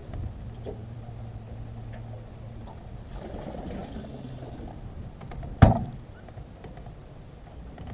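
Small metal jon boat gliding slowly through a marshy channel, with a low steady hum for the first couple of seconds and a single sharp knock, the loudest sound, about five and a half seconds in.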